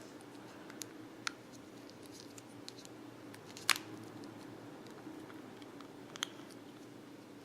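Faint handling of plastic earbuds and their rubber covers: light rubbing with a few small clicks, the sharpest about three and a half seconds in, over a steady low hum.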